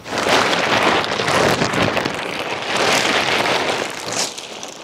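Plastic tarp rustling and crinkling as it is flipped up off the side of a chicken run, a dense crackling noise that fades out near the end.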